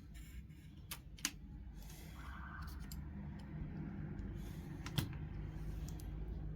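A few scattered sharp clicks and taps, the loudest about five seconds in, over a steady low hum: small hard parts or tools being handled while a graphics card is taken apart.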